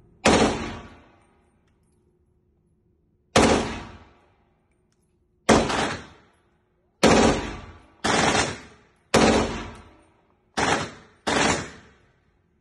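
Eight single shots from an M+M M10X AK-pattern rifle in 7.62×39, fired at an uneven pace with gaps of one to three seconds, each shot echoing for about a second in an indoor range.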